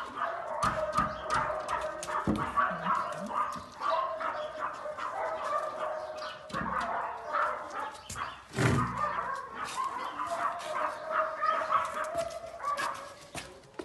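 A dog whining almost without pause in a high, wavering voice, with a few short, deeper woofs in between.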